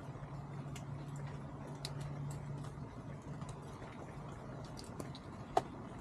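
Chickens pecking and scratching at feed on the ground, making faint scattered ticks, with one sharper click near the end. Under them is a low steady hum that stops about halfway through.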